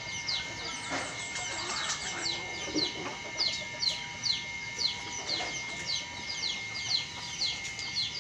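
A chicken chick peeping over and over: short, high, falling peeps, about two a second.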